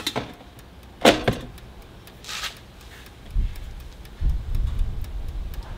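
A sharp click about a second in, then a brief rustle and a few dull low thumps: equipment being handled and switched over, with the fridge being turned off for a power-draw test.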